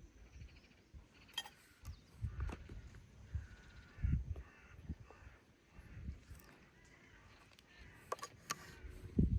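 Crows cawing several times, with low thumps and knocks in between.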